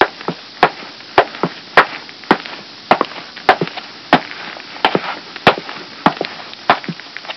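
Sharp knocks in a steady rhythm, a little under two a second, with fainter knocks between them.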